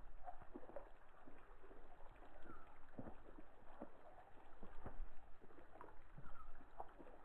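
Light water splashing and sloshing with irregular small knocks, from a caught brown trout being handled in the water before release.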